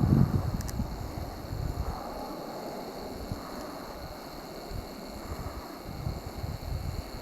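Wind buffeting the microphone in uneven gusts, strongest at the start and easing after about a second.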